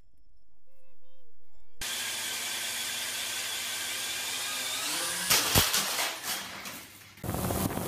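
Small quadcopter drone's motors and propellers buzzing steadily in a small room, the pitch rising about five seconds in, followed by a few sharp knocks as the drone strikes something and the buzzing dies away.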